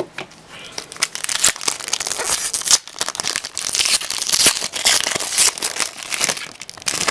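Hockey card pack wrapper being torn open and crinkled by hand, a dense run of crackling that starts about a second in and goes on until near the end.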